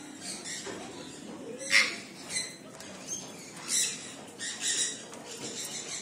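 Parrots in an aviary giving short, harsh squawks and chirps, several times. The sharpest comes about two seconds in.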